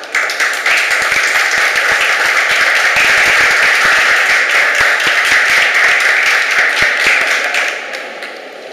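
Audience applauding, a dense patter of many hands that starts abruptly and dies away near the end.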